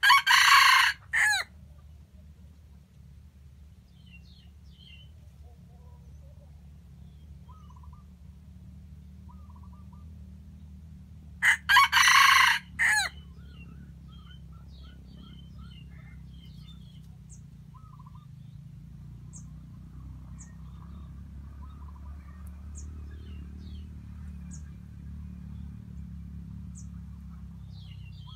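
Red junglefowl rooster crowing twice: a short crow that breaks off abruptly at the start, and another about eleven and a half seconds later. Faint small-bird chirps come in between.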